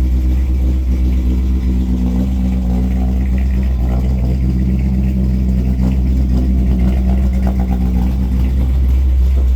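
A 1964 Chevrolet Impala SS's built 327 small-block V8 running steadily.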